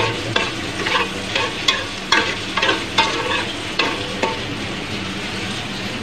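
A metal spoon stirring sweet and sour sauce in a pot, scraping and clinking against the pot about twice a second, and stopping about four seconds in. A steady sizzle runs underneath.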